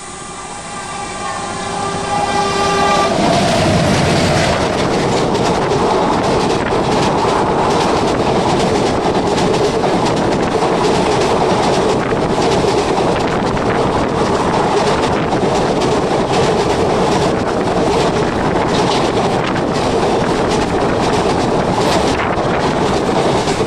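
Mangala Express locomotive's horn held as it approaches, its pitch dropping as the engine passes about three seconds in. Then the passenger coaches rush past on the adjacent track, a loud steady rush of wheels with a continual clickety-clack from the rail joints.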